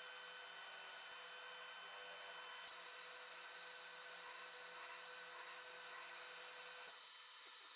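Faint steady hum of a running workshop machine motor with a few steady tones, which stop about seven seconds in; no cutting into the wood is heard.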